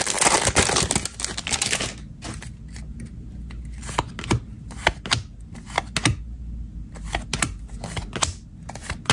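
Crinkling of a trading-card pack's wrapper as it is pulled open, then, from about two seconds in, irregular sharp clicks of football trading cards being flicked one by one off the stack in the hand.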